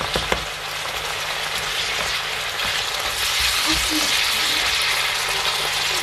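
Beef and pepper pieces sizzling steadily in a hot non-stick frying pan while being stirred with a plastic slotted spatula. The spatula knocks sharply against the pan a couple of times near the start and scrapes through the food.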